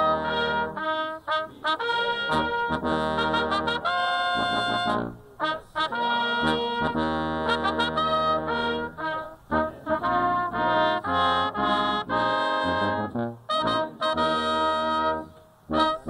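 Military band playing an Army service song, brass music in short phrases with brief breaks. It pauses for a moment near the end, then carries on.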